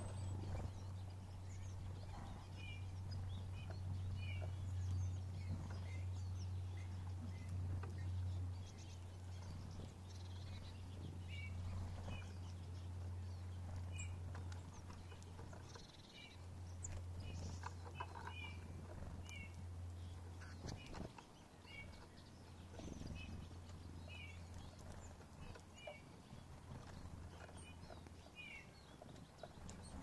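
Small songbirds giving short, high chirps and twitters at irregular intervals while feeding, over a steady low hum that drops away briefly twice in the second half.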